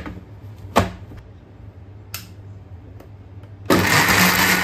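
A few sharp clicks and knocks over a low hum, then near the end an electric mixer grinder starts and runs at full speed, grinding a wet coconut-and-spice masala.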